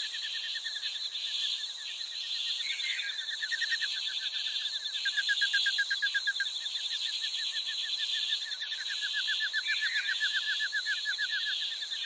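Outdoor animal chorus: a steady high, rasping buzz, with a rapid pulsed trill that comes in stretches of a few seconds and is loudest a little before the middle.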